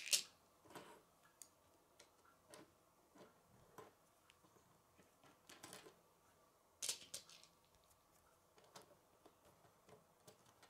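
Plastic K'nex rods and connectors clicking as they are fitted together by hand: scattered light clicks, the loudest at the very start and about seven seconds in.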